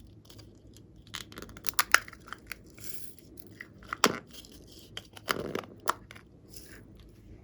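Slime and clay being worked by hand from plastic piping bags: irregular sticky clicks, crackles and crinkles, with the sharpest snaps about two, four and six seconds in.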